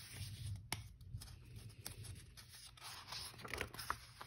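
Pages of a paper picture book being turned by hand: faint rustling of paper with a few soft ticks.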